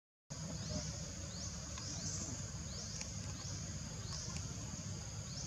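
Forest insect chorus: a steady high buzzing with short rising chirps repeating every second or so, over a low background rumble. The sound drops out briefly right at the start.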